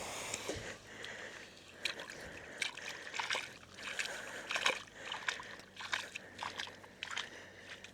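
Footsteps squelching on wet tidal-flat sand and shallow water, uneven steps about one or two a second.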